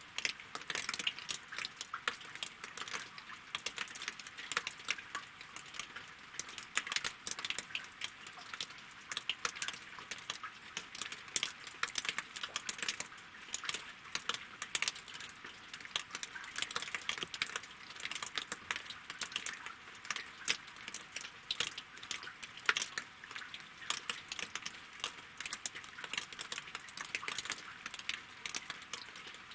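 Rain falling on a lake and on wooden logs: a steady, dense patter of countless small, sharp drop impacts, with no let-up.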